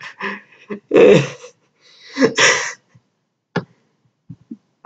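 A boy's loud, breathy gasps in two bursts, one about a second in and one about two seconds in, followed by a few short clicks near the end.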